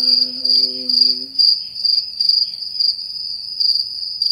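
Cricket-chirping sound effect: one steady high trill, pulsing, the 'crickets' gag for a blank, silent moment. A short steady low hum sounds beneath it during the first second or so.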